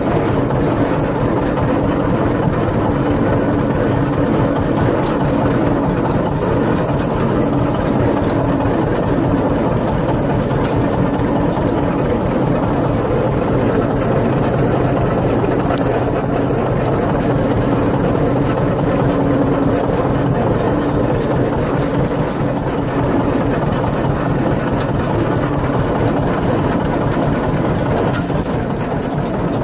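Tractor engine running steadily at an even speed while towing a loaded manure spreader across a field, heard close up from the tractor.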